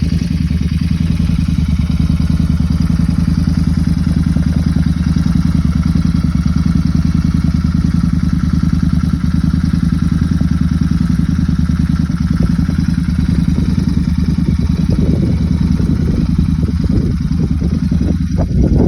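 Royal Enfield Interceptor 650's parallel-twin engine idling steadily through modified exhausts, with a short louder burst just before the end.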